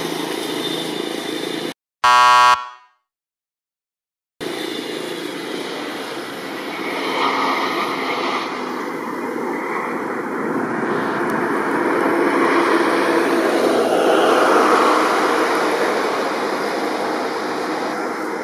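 Airbus A320 jet engines on the landing roll: a steady rushing rumble that swells twice, picked up by the camera's own microphone. About two seconds in there is a short, loud horn-like tone, then the sound cuts out for about two seconds before the engine noise resumes.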